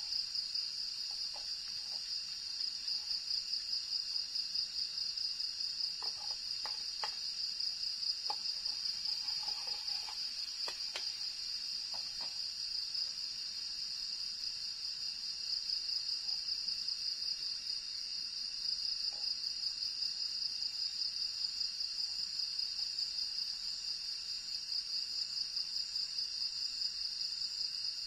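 A steady, high-pitched chorus of night insects, pulsing evenly several times a second. A few faint clicks and knocks come between about six and twelve seconds in.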